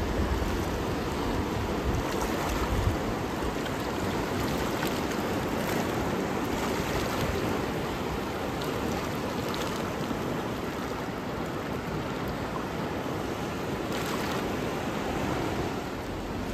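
Fast, turbulent Chandrabhaga river rushing over rapids: a steady, unbroken noise of churning water.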